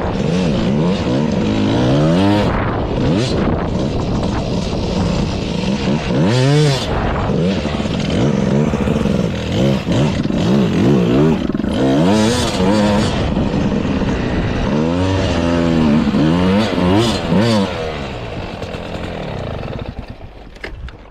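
Dirt bike engine revving up and down again and again as the bike is ridden over soft wood-chip piles, heard close from a helmet-mounted camera. It eases off and quietens near the end.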